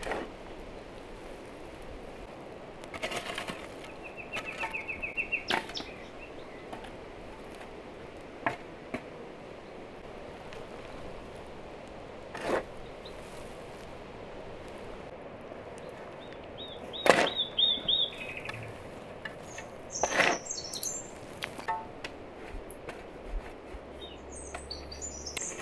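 Shovel scooping and scraping earth over a fire pit, with scattered sharp strikes, the two loudest in the last third. Birds trill and chirp in between.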